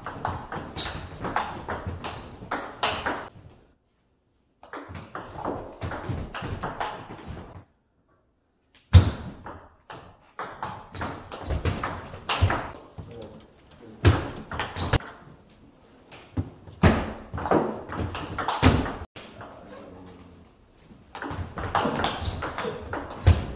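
Table tennis rallies: the ball clicking back and forth off the rackets and the table in quick runs, with brief high pings. The rallies come in bursts of a few seconds with short pauses between.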